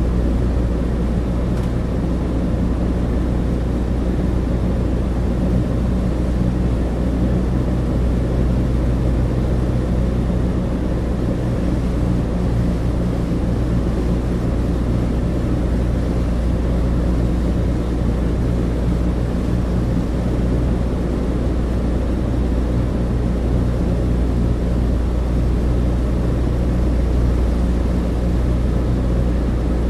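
Cabin interior of a Douglas DC-3 in flight: the twin radial piston engines and propellers give a steady, deep drone with a low hum and rushing noise over it, unchanging throughout.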